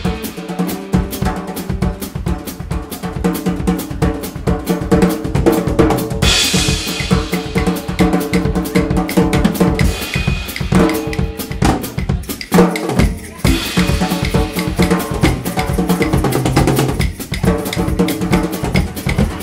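Live jazz combo with the drum kit to the fore: busy snare, bass drum and rimshot strokes over the band's held chords, the trombone silent.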